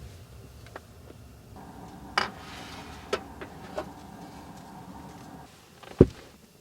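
A small electric motor hums steadily for about four seconds, with a few sharp clicks over it, then stops; a single loud thump follows about six seconds in.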